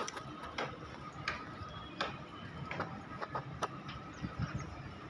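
Small open wood fire crackling, with irregular sharp pops every half second or so over a faint steady high tone.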